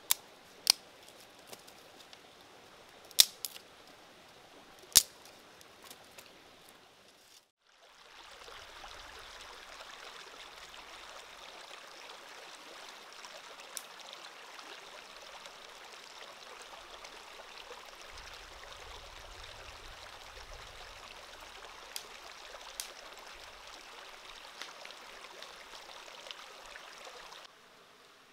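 Heavy stones being set down, with a few sharp stone-on-stone knocks in the first five seconds. Then a steady outdoor background hiss runs on after a cut, with a few faint ticks in it.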